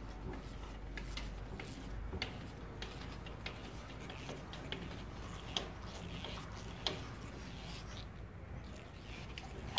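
A pickup truck's jack being cranked up by turning its long extension rod by hand: scattered, uneven metal clicks and rattles as the rod turns.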